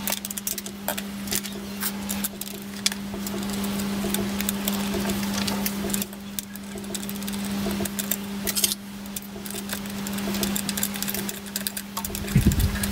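Small steel parts, bolts and a spanner clicking and clinking as a bracket is fitted and bolted onto the mast of a faceting machine, over a steady low hum, with a louder knock near the end.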